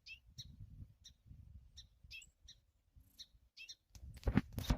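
A bird chirping over and over in short high chirps, about two or three a second, over a low rumble of handling noise. About four seconds in comes a loud rustling burst, louder than the chirps.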